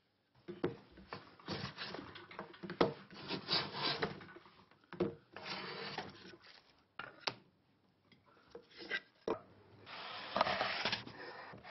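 Japanese hand plane (kanna) shaving a small wooden part in a series of push strokes, each about a second long, with a few sharp knocks between strokes.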